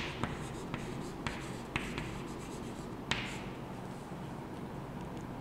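Chalk writing on a chalkboard: a string of sharp taps as the chalk strikes the board, with light scratching between them, then one more tap about three seconds in.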